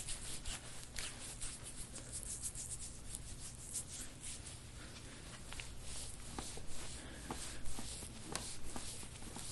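Hands rubbing and kneading over a patient's back during chiropractic soft-tissue massage: a quiet, continuous run of short scratchy friction strokes, with a few sharper ticks in the second half.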